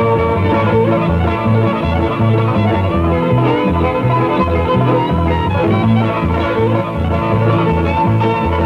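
Upbeat country-style background music with fiddle and guitar over a bouncing bass line, about two bass notes a second.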